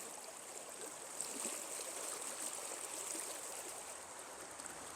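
Stream water rushing steadily, the creek running high with floodwater.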